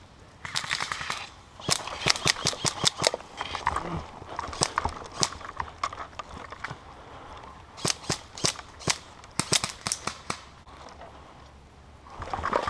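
Airsoft guns firing in rapid bursts of sharp pops and single shots, with short pauses between bursts and the firing dying down near the end.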